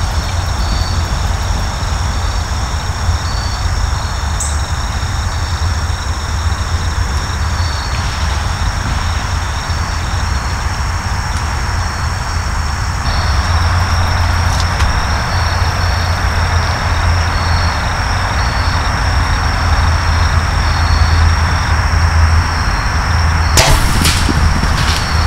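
Evening outdoor ambience of insects calling: steady high-pitched trills with regularly pulsing chirps, over a steady low rumble. A few sharp clicks come near the end.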